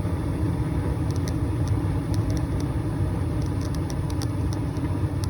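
Gas furnace running with its burners firing and blower motor on, a steady low rumble, with a few faint light ticks in the middle.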